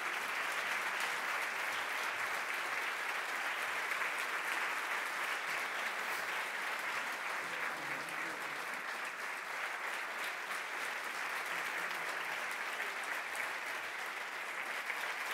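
Audience applauding: a long, steady round of clapping from a crowd.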